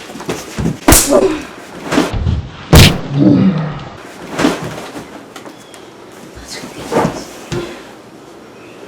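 Irregular series of sharp knocks and thumps, about six in all, the loudest a little under three seconds in, with fainter rustling and brief voice sounds between them.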